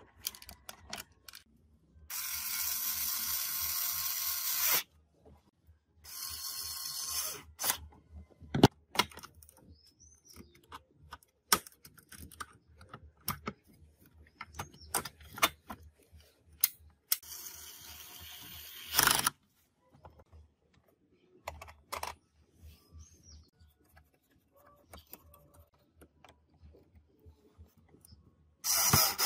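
Cordless drill/driver running in four short bursts of one to three seconds, driving screws into an amplifier's metal chassis panel. Between the bursts, clicks and knocks of screws and sheet-metal parts being handled.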